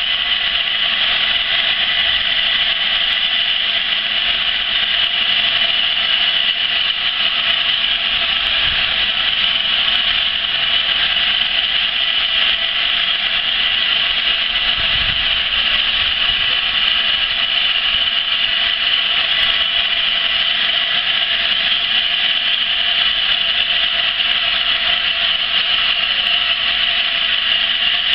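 LNER A4 steam locomotive 60019 Bittern blowing off steam, a loud, steady hiss that holds without a break or beat.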